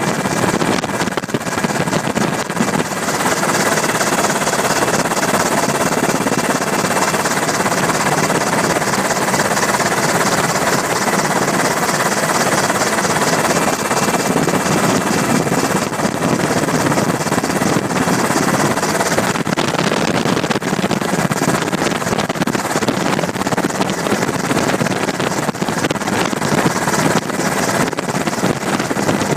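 UH-60 Black Hawk helicopter's twin turboshaft engines and rotor heard from inside the cabin: a loud, steady drone and rush. The high hiss eases a little about two-thirds of the way through.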